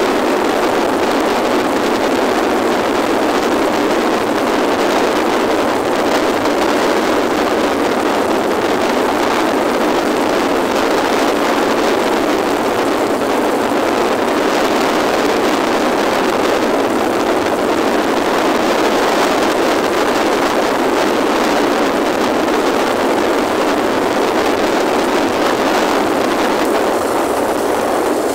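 Steady rush of wind and road noise from a motorcycle riding along at speed, with no clear engine note standing out.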